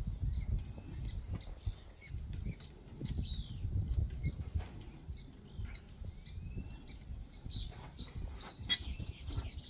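Birds chirping in short high calls, busiest near the end, over a steady low wind rumble on the microphone, with small clicks of metal parts being handled on a bare engine block.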